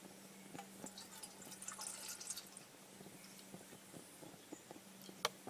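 Faint scattered small clicks and taps over a faint steady hum, with a short patch of light crackle about two seconds in and a sharper click near the end.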